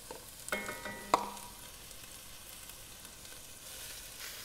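Chopped onions sizzling steadily in hot bacon lard in an enameled cast-iron pot, just added to start sautéing. A few sharp taps and a brief squeak about a second in, the loudest a single tap.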